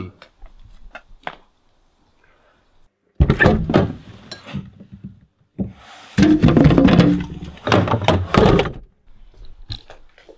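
Refrigerator door pulled open with a thunk, followed by rattling and knocking inside the fridge as beers are taken out.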